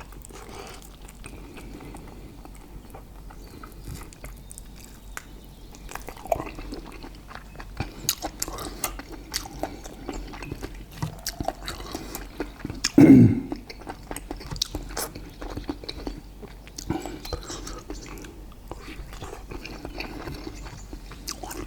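Close-miked chewing and biting: many small wet clicks and smacks of people eating steak, with a short, louder voiced sound from one eater about halfway through.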